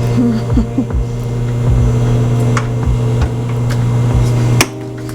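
Steady electrical hum of a running household appliance, with a sharp click about four and a half seconds in.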